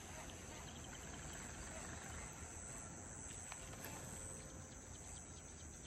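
Insects chirring steadily at dusk, a faint, thin, high-pitched drone that does not let up.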